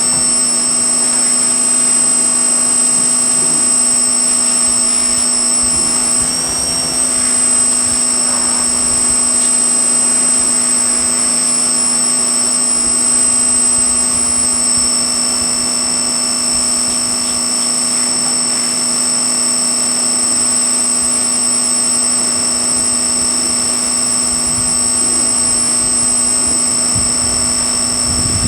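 Pressure washer running steadily, a constant drone with a high whine, with a brief shift in pitch about six seconds in.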